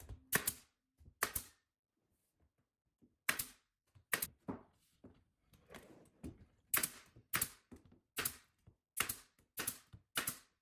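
Pneumatic nail gun shooting nails into wood cabinet trim: about a dozen sharp single shots at uneven spacing, with a pause of about two seconds after the first three.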